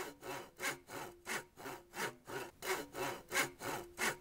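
Hand saw cutting through wood in steady back-and-forth strokes, about three a second.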